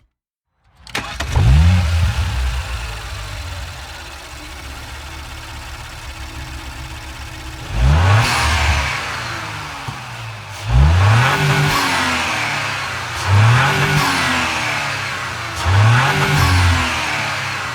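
A car engine is blipped five times after a brief silence at the start: a quick rev about a second in, a few seconds of idle, then four more short revs about two and a half seconds apart. Each rises sharply and falls back to idle. As each later rev drops, the exhaust pops and crackles with a faint falling whistle.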